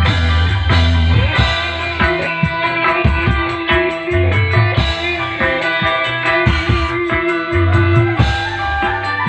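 Music with plucked and electric guitar over a drum kit and a heavy bass line, playing loudly with a steady beat.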